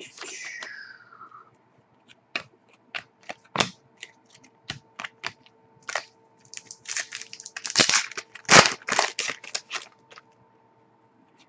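Foil wrapper of a hockey trading-card pack tearing open with a falling rip, then the stiff cards snapping and clicking as they are flicked through one by one. A faint steady hum runs underneath.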